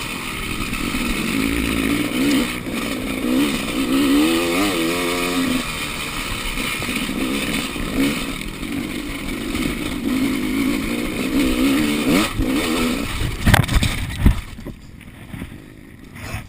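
Enduro motorcycle engine riding off-road, its pitch rising and falling constantly with the throttle. Near the end there are a few sharp knocks, then the engine sound drops away and it goes much quieter.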